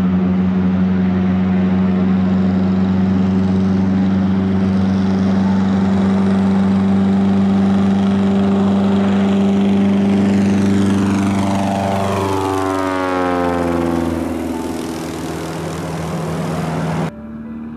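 Cessna 170's engine and propeller at full takeoff power, a loud steady drone during the takeoff run and lift-off. About twelve seconds in the plane passes overhead and the pitch drops. It then drones on lower as it climbs away, until the sound cuts off sharply near the end.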